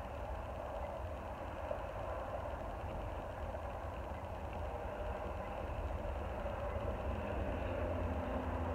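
An engine idling steadily, a low rumble that grows slightly louder in the second half.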